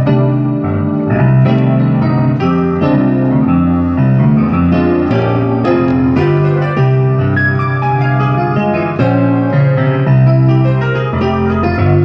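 Electric piano played by hand: a melody of quick successive notes over held low notes and chords, without a break.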